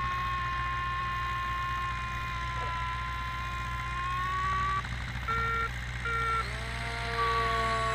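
Electronic variometer tones from RC glider telemetry: two steady beeping-free tones at different pitches that waver slowly up and down, broken by a few short, higher beeps about five to six seconds in, the kind a vario gives when the glider finds lift. A third tone joins near the end over a steady low rumble.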